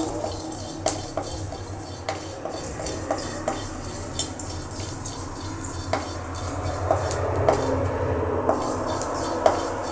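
Metal spatula scraping and tapping against a dry metal kadai while cumin seeds are dry-roasted and stirred: irregular clicks and scrapes over a low steady hum.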